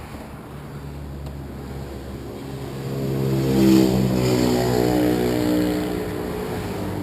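A motor vehicle's engine passing by: it grows louder to a peak about four seconds in, then fades away.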